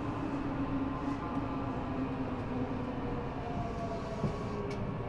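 Eidan 6000 series subway car running, its Mitsubishi three-level VVVF inverter, taken over from a 7000 series car, giving a high whine whose tones slowly fall in pitch over the wheel and rail noise. The falling pitch fits the train braking as it comes into a station.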